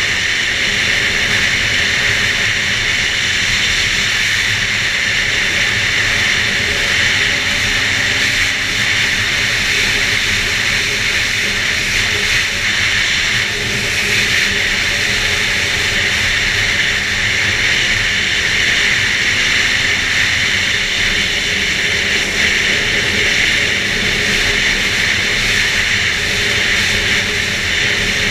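2011 Arctic Cat F8 Sno Pro snowmobile's two-stroke twin engine running steadily under way, with a strong steady hiss over it.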